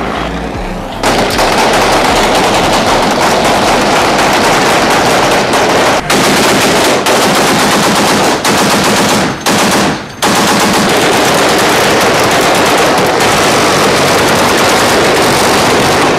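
Sustained automatic gunfire that starts about a second in and runs almost without pause, broken only by brief gaps around six and ten seconds in.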